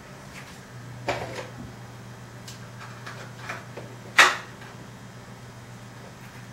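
Plastic clicks and knocks from handling a radio-controlled car's chassis and plastic cover, a few scattered knocks with one sharp loud one about four seconds in. A low steady hum runs underneath.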